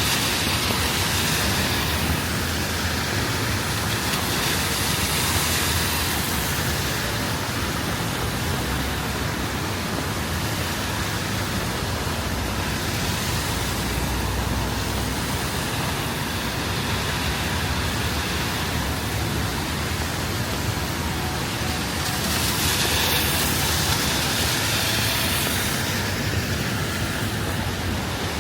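Steady rain on a city street, with vehicles passing on the wet road whose tyre hiss swells and fades several times.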